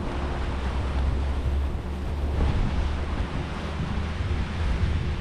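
Steady wind noise buffeting a GoPro microphone while riding a mountain bike, a low rumbling rush with no distinct events.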